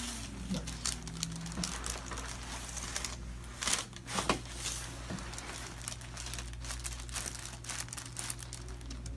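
Crinkling and rustling as the patient is handled on the adjustment table, with two sharp clicks about three and a half and four seconds in, over a low steady hum.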